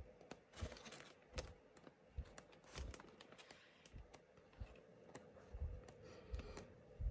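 Stiff 12x12 cardstock sheets being flipped over one after another by hand: faint paper flaps and soft thumps as each sheet falls, about one a second.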